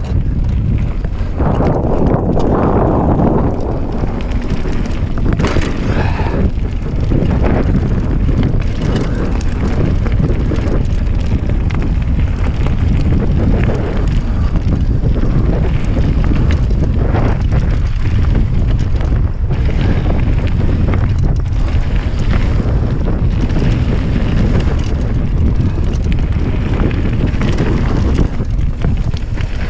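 Mountain bike descending a rough gravel and rock trail at speed: wind buffeting the camera microphone in a constant low rumble, with tyres crunching on stones and many short rattles and knocks from the bike jolting over bumps.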